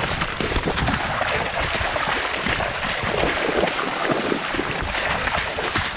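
A runner and a dog splashing at a run through floodwater on a path, with steady, irregular splashes and water spray. Wind rumbles on the microphone.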